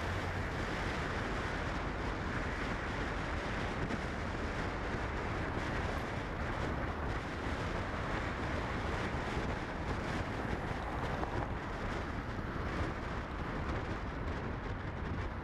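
Steady rushing noise from a moving car, tyres on the road and wind, with no distinct events.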